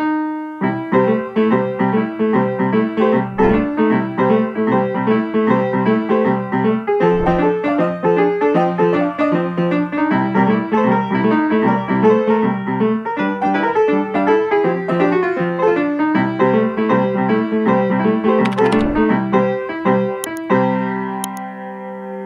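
Piano music: a quick, even run of notes, ending in held chords near the end.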